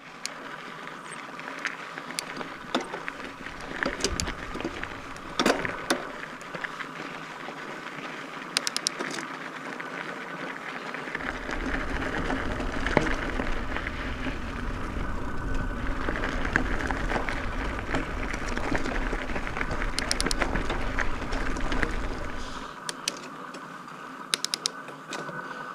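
Mountain bike rolling over gravel and a dirt trail: steady tyre noise with scattered sharp clicks and rattles from the bike, and a heavy low rumble through the middle stretch.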